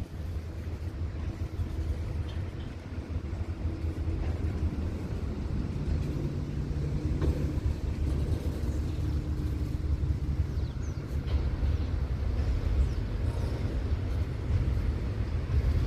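Diesel engines of Class 35 GM-EMD diesel-electric locomotives running with a steady low rumble. It grows a little louder, with a deeper tone joining about six seconds in.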